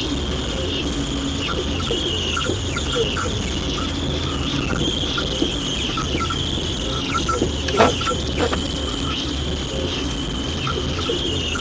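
Radio receiver putting out an unidentified signal: a steady hiss and low hum with scattered short chirps and blips, and a louder crackle about eight seconds in.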